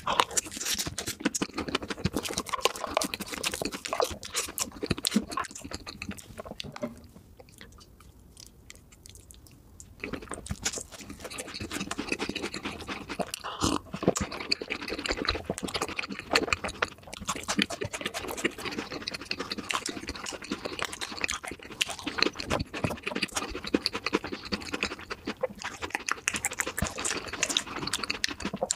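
Close-miked eating sounds, sped up to double speed: chewing, lip smacks and sticky mouth noises of chocolate cake and soft chocolate desserts. They go quieter for a few seconds about a third of the way in, and there are swallows of milk around the middle.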